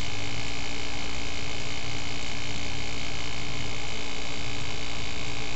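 A steady, unchanging hum and hiss, with no other events.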